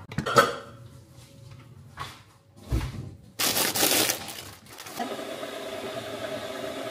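Stainless steel cooking pots knocking and clinking as they are handled and set down, then a short loud rush of noise, and about five seconds in a steady hum starts and keeps going.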